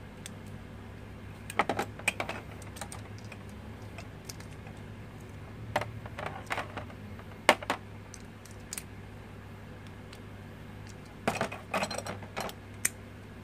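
Clicks and clacks of Infinity Nado spinning-top parts, plastic and metal, as they are handled, fitted together and set down in a plastic arena bowl. The clicks come in three short clusters.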